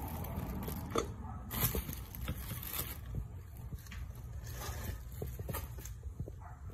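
Handling noise: rustling, scraping and light clicks as vacuum parts and packaging are moved about, with a louder stretch of rustling in the first half, over a steady low hum.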